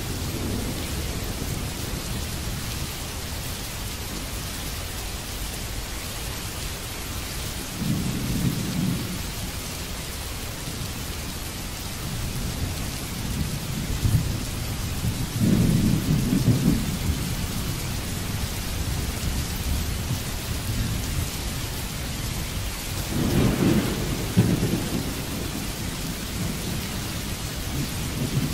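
Steady rain hissing, with thunder rumbling low three times, the last rumble near the end the loudest.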